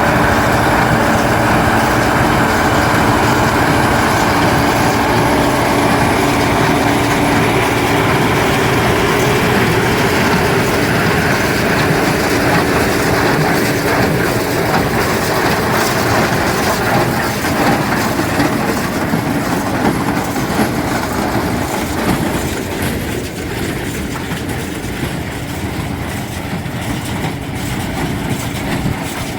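John Deere 4055 tractor's six-cylinder diesel running under load, pulling a John Deere 338 square baler whose pickup and plunger add a steady mechanical clatter as it bales straw. Slightly quieter over the last few seconds.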